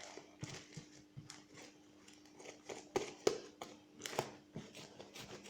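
Sticky homemade slime being handled and pulled: scattered soft clicks and sticky pops, with a few louder snaps about three and four seconds in.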